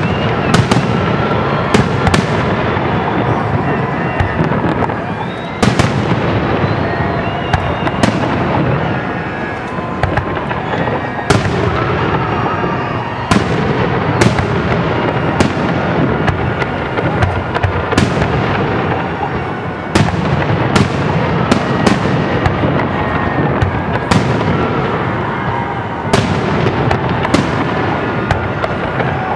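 Aerial fireworks shells bursting in quick succession, a sharp bang every second or two, each followed by a short ringing tail, over a constant rumble from the display.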